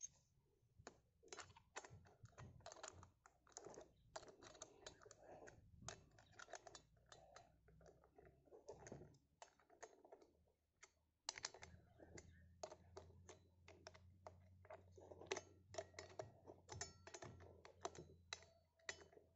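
Faint, irregular light clicks and taps of small metal parts being handled as a nut is turned by hand on the chainsaw bar attachment of an angle grinder.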